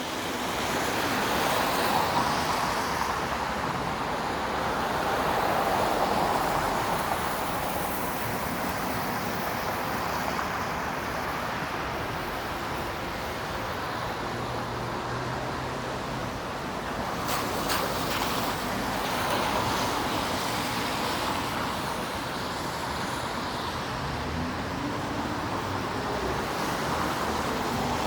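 Downtown street traffic: cars passing one after another, their noise swelling and fading several times, with a short sharp sound about two-thirds of the way through.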